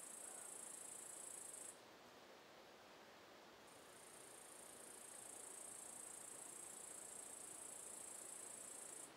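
Faint, steady high-pitched trilling of crickets. It stops about two seconds in, fades back in a couple of seconds later and cuts off near the end.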